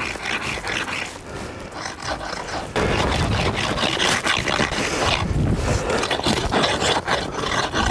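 Homemade hand ice saw rasping back and forth through thick lake ice, a coarse scraping grind. It gets abruptly louder about three seconds in.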